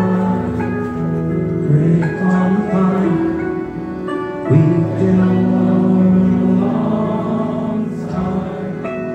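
Live band music: a man sings a slow song with long held notes over accordion and harp.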